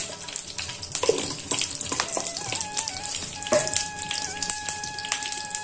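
Mustard seeds sizzling in hot oil at the start of a tempering, with scattered sharp crackles as they begin to pop. A steady thin tone comes in about three and a half seconds in.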